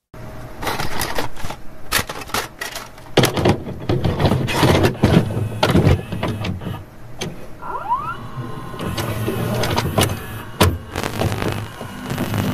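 Mechanical whirring with many irregular clicks and clatters, and a short rising whine about eight seconds in.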